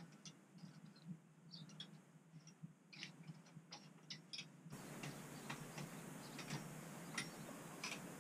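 Faint, irregular light clicks and taps of handwork fitting hemp wool insulation panels between metal ceiling rails. About halfway through, the background hiss suddenly grows louder.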